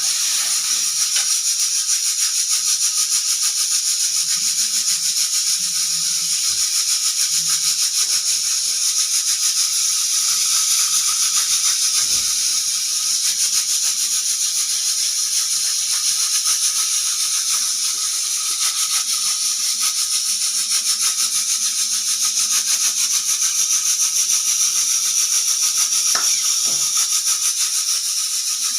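Pressure cooker whistle venting steam: a loud, steady, high hiss with a fast fluttering rattle from the weighted valve jiggling on the vent. This is the sign that the cooker has reached full pressure.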